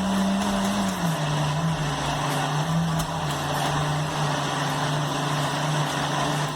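Countertop blender motor running steadily, mixing a thick cake batter with flour in it. Its hum rises in pitch for about the first second, then settles lower, and it switches off at the very end.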